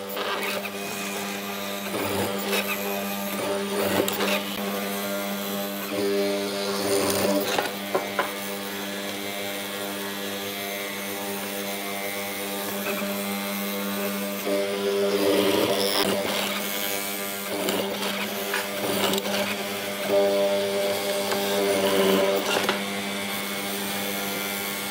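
Benchtop hollow-chisel mortiser running steadily, its square chisel and auger plunged into wood again and again to cut a mortise. Several times the cutting gets louder and rougher as the bit bites into the wood.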